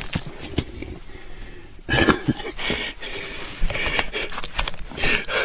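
Camera handling noise: a few sharp knocks, then loud rustling and scraping close to the microphone as the camera is swung around and held up to the hunter's face.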